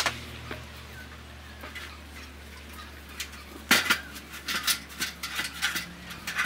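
Aluminium stepladder being moved and set up: a clank at the start, a louder knock a little before four seconds in, then a quick run of light metallic clicks and rattles.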